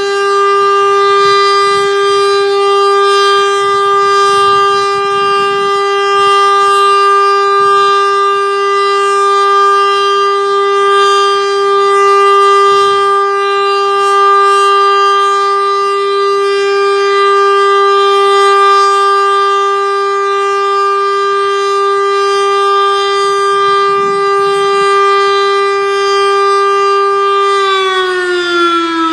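ASC T-112 outdoor warning siren sounding a steady alert tone during a test, one constant pitch with a rich stack of overtones. Near the end the pitch starts to fall as the siren begins to wind down.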